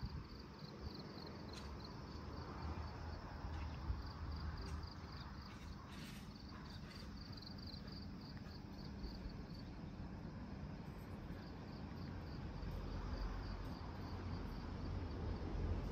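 Insects chirping in a quick, even pulsing rhythm, over a low rumble of outdoor ambience.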